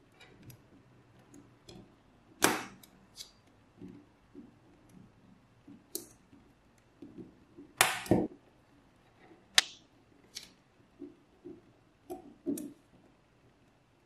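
Small magnetic balls clicking as they snap onto a block of magnet balls and are pressed into place, with soft handling sounds between. The clicks come irregularly, the loudest about two and a half seconds in and about eight seconds in.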